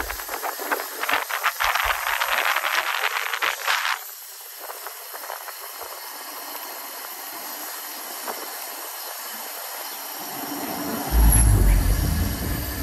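Bicycle riding on asphalt on Maxxis 29-inch tyres: a steady rolling hiss, loud and full of rapid ticking for about the first four seconds, then quieter. A deep rumble comes in about eleven seconds in and lasts nearly two seconds.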